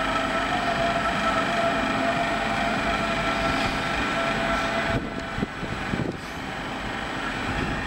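Munich S-Bahn class 423 electric multiple unit pulling into the platform and slowing, with a steady whine of several held tones from its traction electrics over rail running noise. The sound drops in level about five seconds in, with a couple of short knocks.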